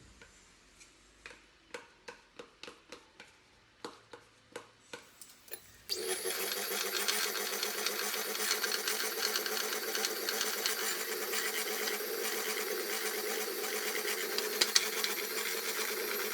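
A spoon knocks against a bowl about a dozen times, then about six seconds in an electric hand mixer starts and runs steadily, beating the mascarpone into the egg yolk and sugar.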